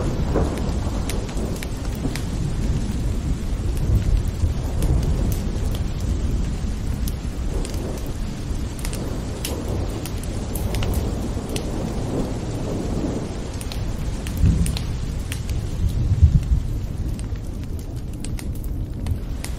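Steady rain with a deep rumble of thunder underneath that swells a few times, most strongly in the second half. Scattered sharp drop ticks sound through the hiss.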